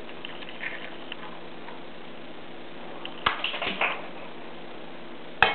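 Eggs frying softly in butter in a small frying pan, with a brief clatter a little past the middle and a sharp crack near the end as the second egg is knocked on the pan's rim.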